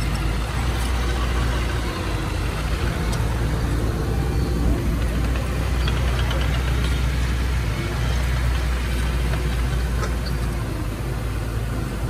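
Heavy diesel engine of earthmoving machinery running steadily, strongest in the low end.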